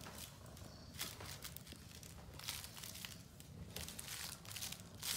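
Soft rustling and crinkling in a few short bursts as kittens climb and shuffle about inside a plush banana-shaped cat bed.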